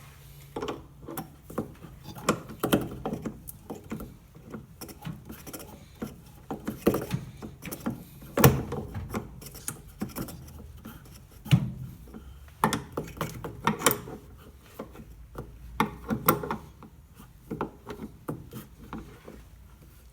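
Irregular knocks, clicks and scraping of washing machine parts and tools being handled, with two louder knocks a little past the middle.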